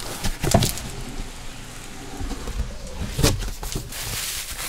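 Cardboard shipping carton and plastic bubble wrap being handled: the wrap rustles and crinkles as it is pulled off a large boxed package, with two dull knocks from the boxes, about half a second in and again just past three seconds.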